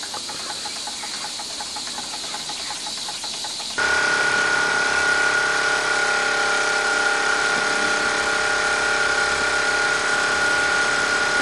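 Wilesco D222 live-steam toy engine running steadily on slow tick-over: a soft hiss with a faint fast beat. About four seconds in the sound changes abruptly to a louder, steady mechanical whirring with several held humming tones from the engine and its spinning flywheel and shafting.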